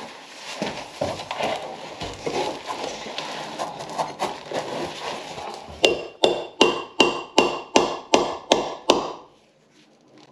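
Hand-tool work on an aerated concrete (Ytong) block: first irregular scraping and knocking, then, about six seconds in, a run of about nine sharp, evenly spaced strokes, roughly three a second, each with a short metallic ring.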